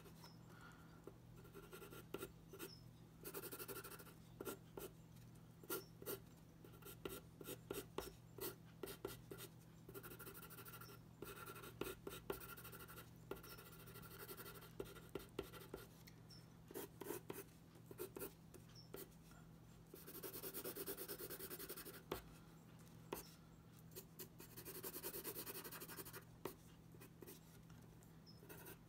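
Yellow wooden graphite pencil scratching on drawing paper, faint: many short, quick strokes with several longer stretches of back-and-forth shading.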